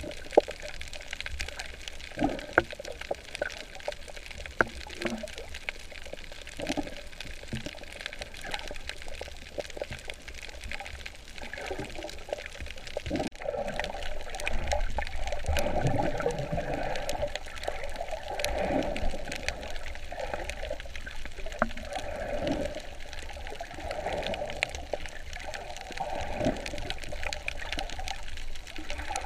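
Water sloshing and gurgling around a snorkeller's camera, with scattered small clicks and louder surges of movement through the second half.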